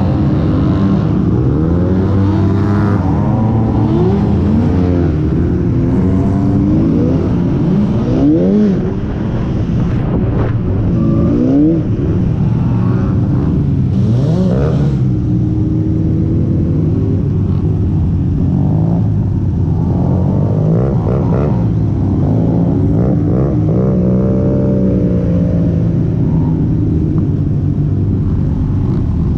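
Motorcycle engines heard from a moving sport bike riding among a group of motorcycles: a steady engine drone with many overlapping revs rising and falling as the riders throttle and shift gears.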